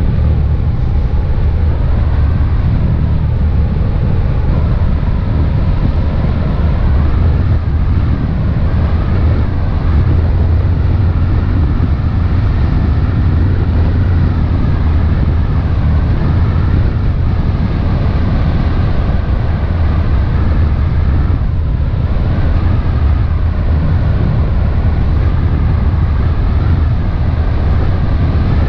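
Motor launch's engines running steadily at cruising speed: a loud, constant low drone, with a rushing noise of wind and water over it.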